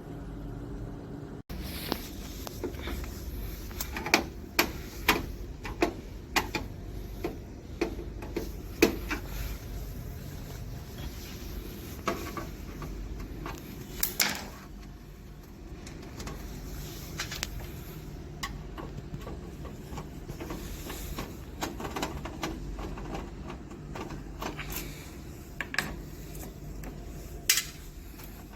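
Irregular clicks and knocks of parts and tools being handled while a Bizhub 300i copier is taken apart, over a steady low hum.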